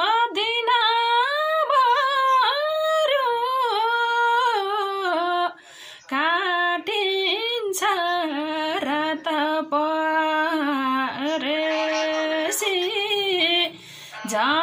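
A woman singing a Nepali folk song alone, unaccompanied, her voice sliding and bending between notes in long held phrases. It breaks off briefly twice, about six seconds in and near the end.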